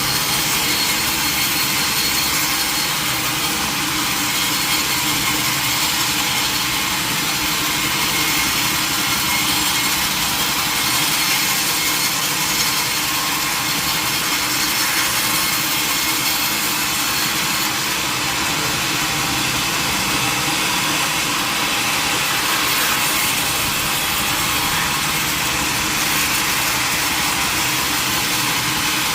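Mill saw cutting steadily through a large mahogany log: a constant, even sawing noise that does not let up.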